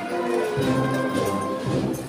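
Processional music from a band in the street, playing several held notes together at a steady level.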